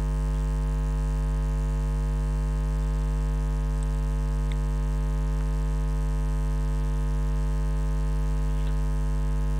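Steady electrical mains hum with a stack of evenly spaced overtones, holding one level throughout.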